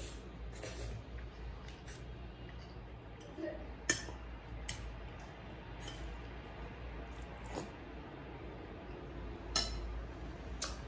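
Spoon clinking against a bowl of soup now and then while eating, about eight light knocks, the sharpest one about four seconds in.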